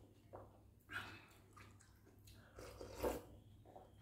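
Eating sounds from a noodle-soup mukbang: sipping broth from a soup spoon and chewing, with short slurps about a second in and again, louder, about three seconds in.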